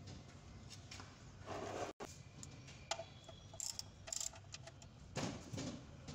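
Faint metallic clicks and clinks of a socket wrench working the oil drain plug into the sump as it is refitted and tightened, over a low steady hum.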